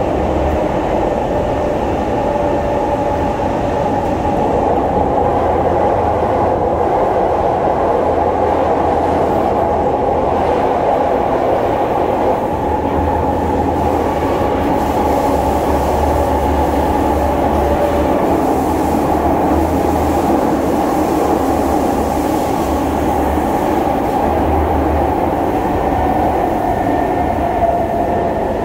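Kawasaki Heavy Industries C151 metro train running between stations, heard from inside the car: a steady, loud running noise with a low rumble beneath it.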